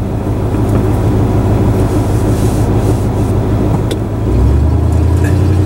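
Vehicle engine and road noise heard from inside the cab while driving, a steady low hum that settles into a lower, even drone about four seconds in.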